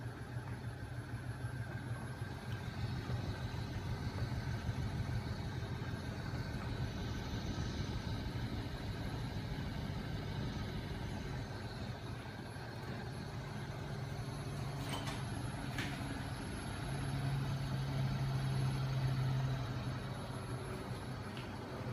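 Homemade flywheel machine running, driven by a small 12 V electric motor: a steady, fast-pulsing mechanical hum from the spinning flywheel, bearings and crank linkage. A couple of light clicks come about two-thirds through, and the hum grows louder near the end.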